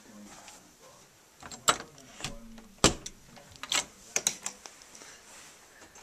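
Half a dozen sharp clicks and knocks at uneven intervals, the loudest about three seconds in: a door being handled and a light switch flicked on.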